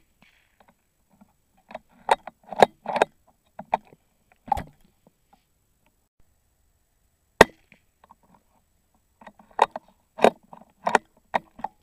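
.22 rimfire rifle shot about seven seconds in, one sharp crack. In the seconds after it, and after a shot just before, come clusters of quick clicks and knocks as the rifle's bolt is worked to chamber the next round.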